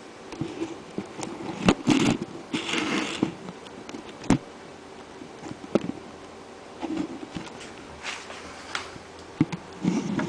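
Two cats play-fighting: irregular thumps and knocks with short bursts of scrabbling and scratching of paws, the loudest cluster about two to three seconds in.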